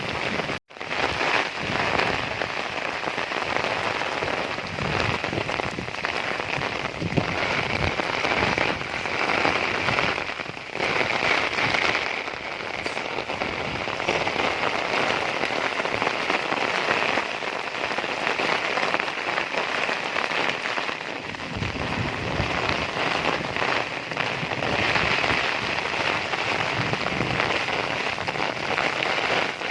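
Heavy rain pouring down, a steady dense patter of drops hitting surfaces.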